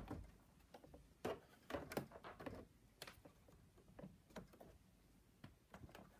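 Faint scattered clicks and taps of small magnets being set onto an embroidery hoop to hold the fabric down, with light handling noise between them.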